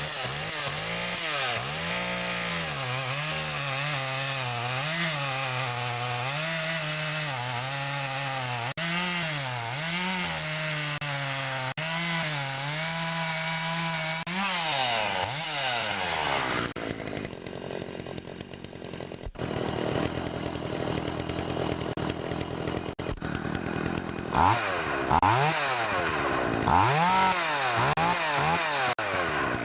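Makita DCS 400 (Dolmar-built, 39cc two-stroke) chainsaw running at high revs on a test cut in wood after a carburettor adjustment, its pitch rising and falling under throttle and load. The sound turns rougher and less even about halfway through, then the revs swing up and down again near the end. It runs cleanly, a sign the carb tune is right.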